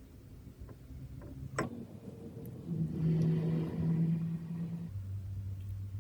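A sharp click, then a steady low mechanical hum with overtones, like a small electric motor, that drops abruptly to a lower hum about five seconds in.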